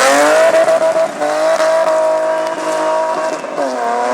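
Rally car engine at full throttle, its pitch climbing and then held high and steady for about three seconds, with a sharp drop in revs near the end as it lifts or changes gear.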